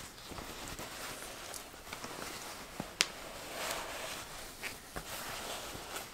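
Cotton dust bag rustling as a leather mule shoe is drawn out of it, with a few light taps and clicks of handling, the sharpest about halfway through.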